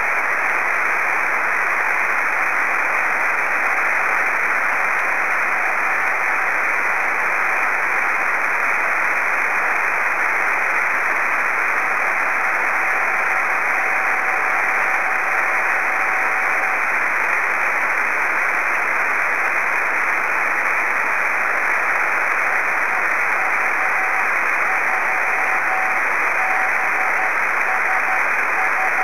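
Hiss of a 2 m radio receiver in CW mode with the Morse tone of the SV3BSF/B beacon fading in and out of it, carried by aircraft scatter off a passing airliner. The tone is weak and broken at first, holds steady for about five seconds around the middle, and near the end comes through as keyed Morse dots and dashes.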